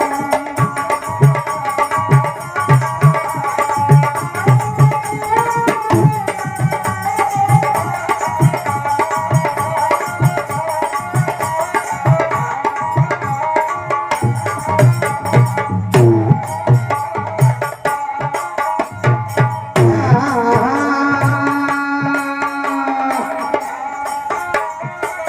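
Instrumental interlude of Rajasthani devotional folk music: a sustained melody line, sliding in pitch in places, over a steady hand-drum beat.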